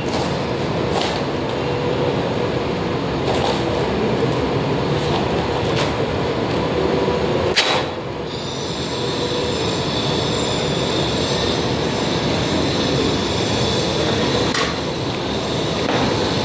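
Steady, rough metalworking noise with a few sharp metal knocks. About eight seconds in, a high steady whine joins it.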